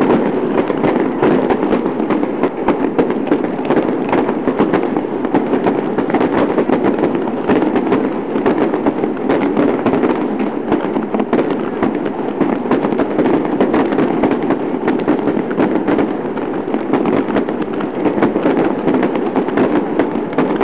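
Fire of dry palm fronds burning, crackling loudly with a dense, continuous run of quick pops.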